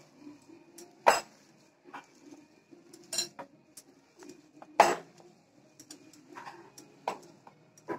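A hand squeezing and mixing vermicelli upma in a cut-glass bowl, with a few sharp glass clinks as the hand and its jewellery knock the bowl, loudest about a second in and again near the middle.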